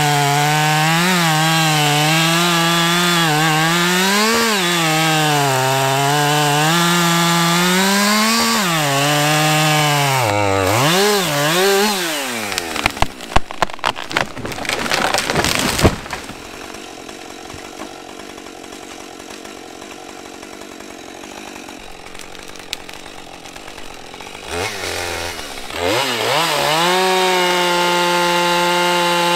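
Chainsaw felling a standing dead maple, its engine pitch wavering as it cuts under load. About ten seconds in the saw throttles down, and the tree gives a series of sharp cracks and thuds as it breaks off and comes down. After a quieter stretch the saw revs up again near the end and runs at a steady high throttle.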